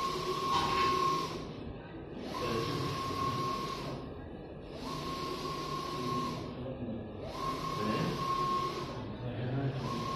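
A 1.8 m belt textile printer printing, its print-head carriage sweeping back and forth: each pass is a steady whine with a rushing noise lasting about a second, followed by a short pause, repeating roughly every two and a half seconds.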